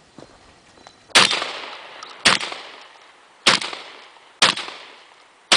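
Benelli M3 shotgun firing five shots about a second apart, each trailing off in a short echo.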